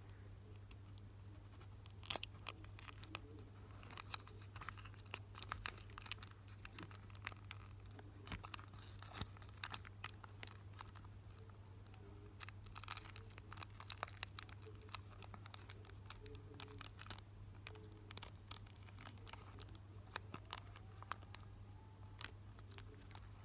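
Foil wrapper of a Pokémon card booster pack being slowly peeled open at its crimped seam: irregular clusters of crinkling crackles and small tearing sounds, faint, over a steady low hum.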